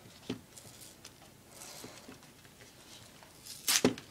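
Ribbon and a paper tag being handled around a glass mason jar: soft rustling with a small click, then a louder rustle and bump near the end.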